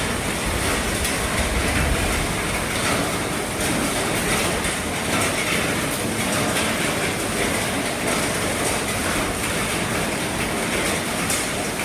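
Heavy rain falling steadily on an RV roof: a dense, even patter with scattered faint taps.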